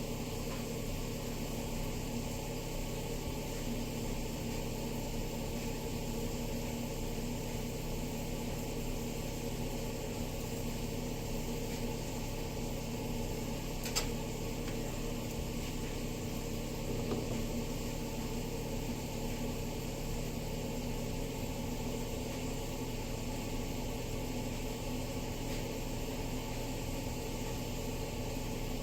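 A steady mechanical hum from a running kitchen appliance, with a single sharp click about halfway through.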